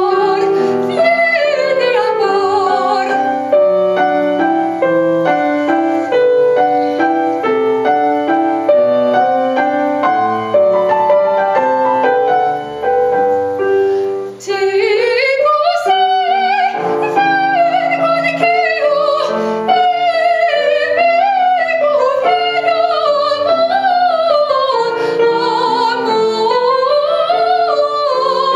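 A woman's solo voice singing in a trained, operatic style with grand piano accompaniment. Her phrase ends about three seconds in, the piano plays alone for about ten seconds, and she comes back in halfway through with a rising phrase sung with wide vibrato.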